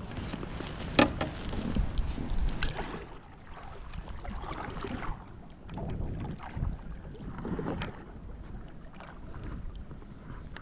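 Wind rumbling on the microphone, with a few sharp knocks and clicks from gear being handled in a kayak.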